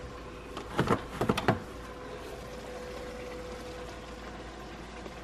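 A quick cluster of light knocks and clatters about a second in, from kitchen items being handled on the counter as the seasoning can is picked up. Underneath is a steady faint hum.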